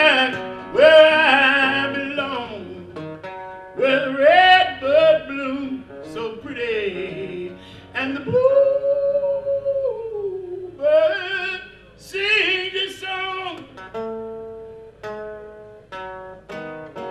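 Male voice singing a long, bending vocal run over strummed and picked acoustic guitar, with one long held note about 8 seconds in. The voice stops about 14 seconds in, leaving plucked guitar notes.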